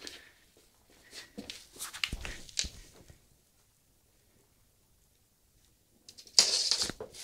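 Pet rabbit scuffling and scratching about on the floor: a spell of light scrapes and knocks, then a louder rustling scrape near the end.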